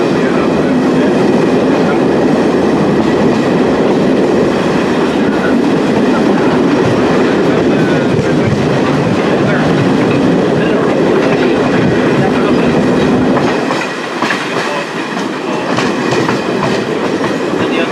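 Railway carriage running along the track: a steady rumble of wheels on rail with clickety-clack, easing a little about three-quarters of the way through, when a quick run of sharp clicks comes in.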